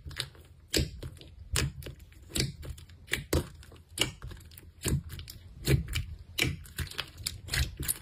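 Hands squeezing, poking and folding a fluffy white slime with mint-green beads mixed through it, giving sharp crackles and pops, a strong one about every second with smaller clicks between.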